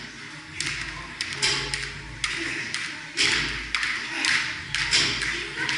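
Irregular knocks and thuds from a workout with barbells and other gym equipment, about two a second, each echoing briefly in the large hall.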